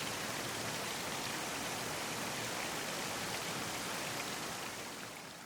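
Steady rush of a waterfall's falling water, fading out near the end.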